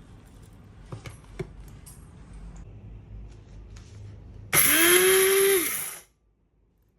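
A few light taps and clicks, then an electric spice grinder's motor switched on loud for about a second and a half, rising in pitch as it spins up and then holding steady, before cutting off suddenly.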